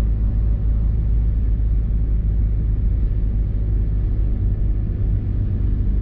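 Steady low rumble of a car's engine and tyres on a wet road, heard from inside the cabin while driving.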